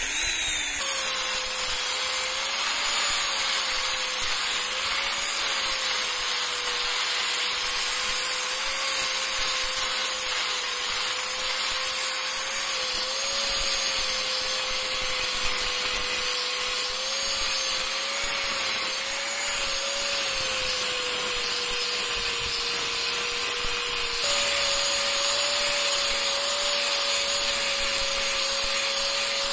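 Angle grinder with a sanding disc running steadily as it sands a resin screwdriver handle. The motor's whine wavers slightly as the disc is pressed on, and steps abruptly a little higher about 24 seconds in.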